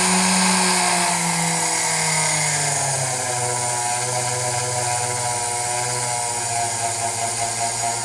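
Foredom flex-shaft rotary tool motor running at full speed of about 14,000 RPM, then drawing down in pitch over the first three seconds as its speed control is turned back. It settles into a steady lower-speed run of about 7,000 to 8,000 RPM, the speed used for sharpening chainsaw chain on a grinding stone.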